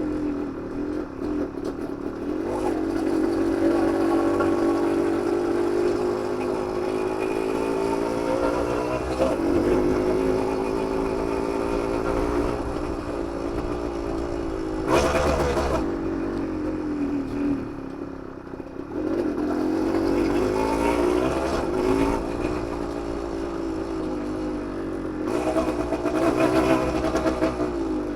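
1991 Suzuki TSR 125's two-stroke single-cylinder engine running after its rebuild, its pitch rising and falling over and over as it is revved and eased off. A short, sharp burst of noise comes about halfway through.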